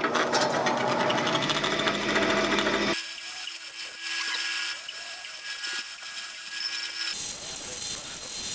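Bandsaw running and cutting small wood pieces for a kumiko grid. The sound changes abruptly about three seconds in, when the low hum drops away, and again near seven seconds.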